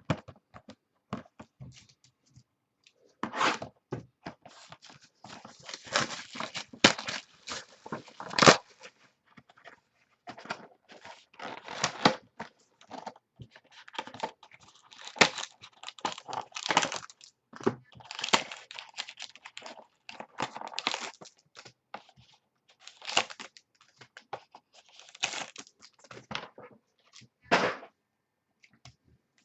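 Trading-card box and pack wrappers being torn open and handled: irregular bursts of tearing, crinkling plastic and rustling cardboard, with small clicks and taps in between.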